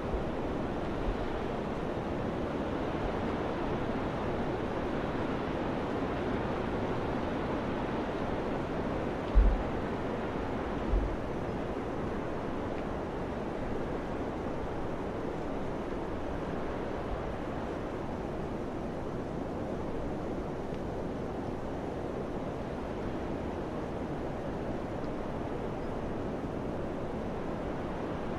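Steady rushing wind, with two brief low thumps of wind buffeting the microphone about nine and eleven seconds in.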